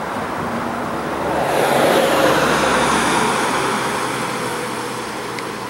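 A pickup truck driving past on the street, its road noise swelling to a peak about two seconds in and then slowly fading as it moves away.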